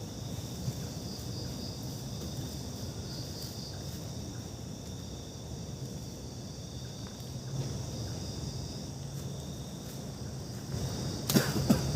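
Crickets and other insects chirring steadily in a high, even chorus over a low background rumble. Near the end comes a short cluster of knocks and rustles.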